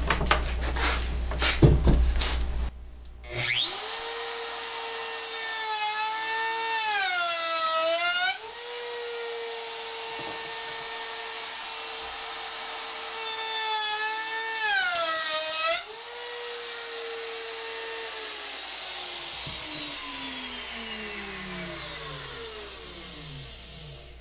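A few handling knocks, then a DeWalt compact router switched on with a quick rising whine, running at full speed. Its pitch drops twice under load as the roundover bit cuts two fast passes along a white oak edge. It is then switched off and winds down with a steadily falling whine.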